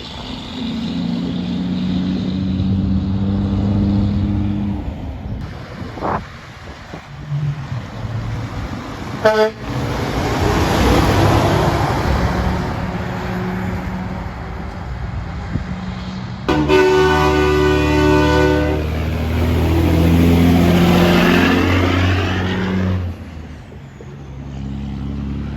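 Heavy trucks passing on a road, with a short horn toot about nine seconds in. About two-thirds of the way through, a truck air horn sounds a chord for about two and a half seconds, and the truck then goes by loudly.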